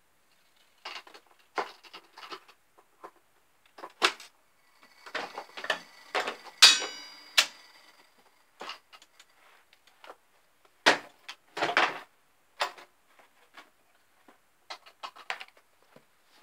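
Mechanism and cabinet of an Aristocrat Arcadian electromechanical slot machine being handled: a string of clicks and metal clunks, with a ringing metallic clang about six and a half seconds in. Heavy clunks follow around eleven seconds in as its front door is shut.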